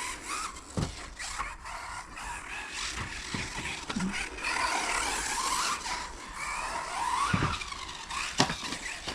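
Electric RC touring car's brushless motor whining, rising and falling in pitch as it speeds up and slows down on a carpet track, with tyre noise and a few sharp knocks.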